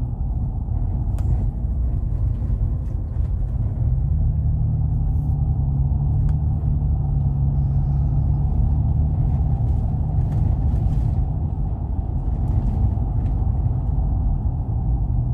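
Steady low rumble of a vehicle driving along a road, heard from inside the cab, with a few faint ticks.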